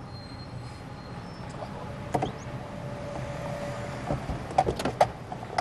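Inside a stopped car: a steady low hum with several sharp clicks and knocks of people moving in their seats, a couple about two seconds in and a cluster in the last second and a half.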